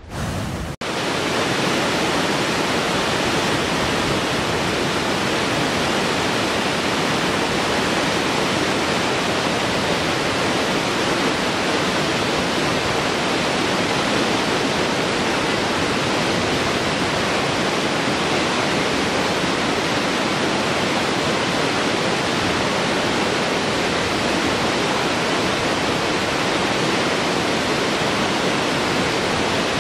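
Steady, loud rush of a waterfall: falling water as an even, unbroken noise, with a brief dropout less than a second in.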